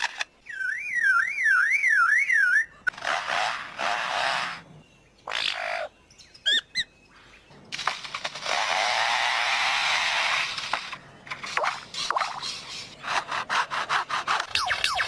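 A lyrebird mimicking artificial and bird sounds. It starts with a fast warbling siren-like call, then gives harsh noisy calls and a few short chirps, a long steady rasping stretch, and a quick run of rapid clicks near the end.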